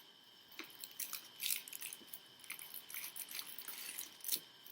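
Light crackling and clicking of plastic packaging as switch plate covers are handled, with short scattered rustles and a sharper click near the end.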